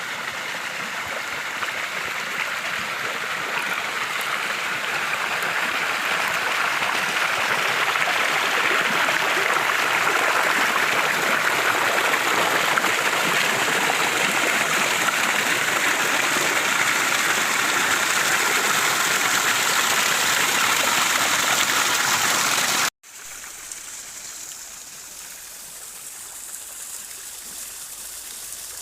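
Steady rush of flowing water, growing slowly louder. About 23 seconds in it cuts off abruptly and gives way to a quieter, softer flow of water.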